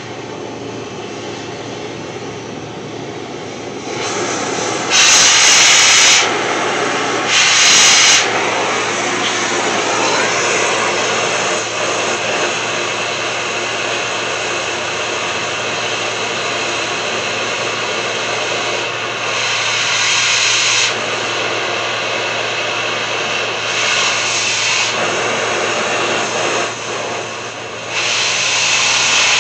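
Oxy-acetylene cutting torch hissing steadily while it cuts into a steel truck frame rail. It gets louder about four seconds in, with two short, louder blasts of hiss about five and eight seconds in and smaller swells around twenty and twenty-four seconds.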